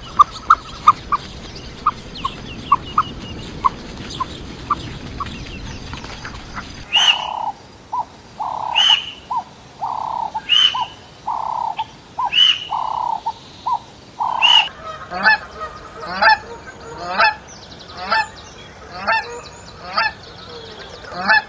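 Domestic waterfowl calling: a run of short high peeps, then about eight loud honks roughly one a second, then a quicker string of shorter calls near the end.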